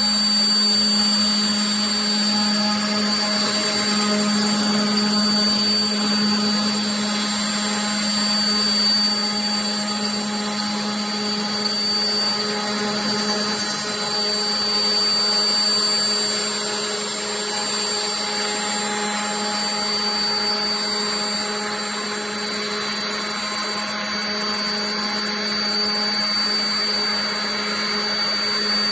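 QUADRO CNC router running steadily, its high-speed spindle giving a constant hum with a thin high whine over a noisy rush, typical of routing wood panels.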